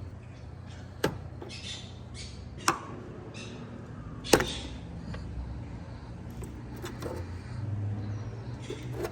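Three sharp plastic clicks about a second and a half apart, the last the loudest, as the tabs holding a 2012 Jeep Grand Cherokee's tail light lens are worked loose, over a steady low hum.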